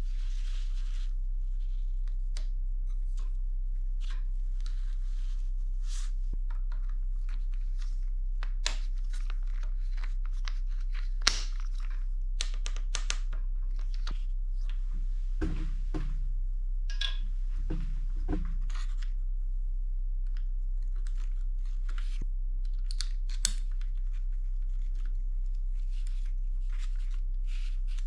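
Irregular rustling, crinkling and light clicks of parts, tools or packaging being handled, with a few sharp clicks, over a steady low electrical hum.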